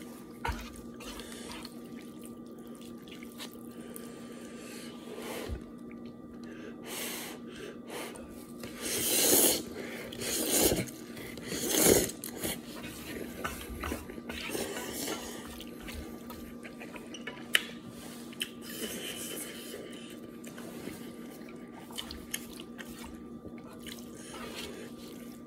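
Person slurping instant noodles from a frying pan with chopsticks: three loud wet slurps close together a little before the middle, with quieter mouth noises and a few light clicks around them. A faint steady hum runs underneath.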